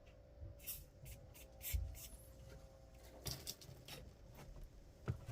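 Scattered soft rubbing, scraping and clicking of hands working on fittings, several short sounds a second or so apart, over a faint steady hum.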